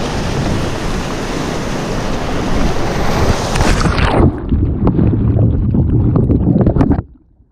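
Strong wind buffeting the microphone over waves and splashing water. About four seconds in it becomes lower and choppier, then cuts off suddenly near the end.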